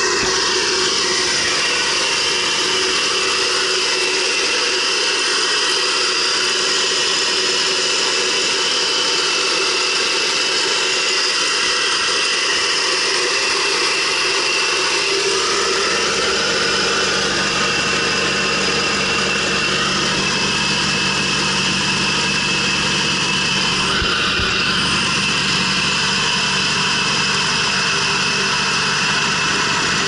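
Subaru B9 Tribeca's 3.0-litre flat-six idling steadily, heard close up in the engine bay, with a steady high-pitched hiss and whine over the engine note; the owner suspects a vacuum leak.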